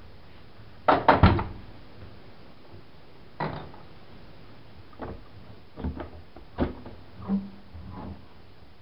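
Privileg Single 42614 washing machine going quiet at the end of its cycle, with a quick cluster of knocks about a second in, the loudest part, followed by single knocks and clicks about a second apart.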